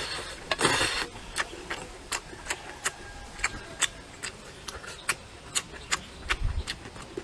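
A person slurping up a mouthful of vermicelli noodles, a short rushing slurp about half a second in, then chewing with sharp wet smacking clicks about three times a second.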